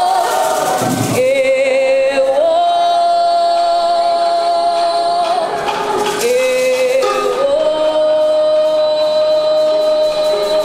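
A solo voice singing into a microphone in two long phrases. Each phrase rises in steps to a long held note with vibrato, the first ending about five seconds in and the second held near the end.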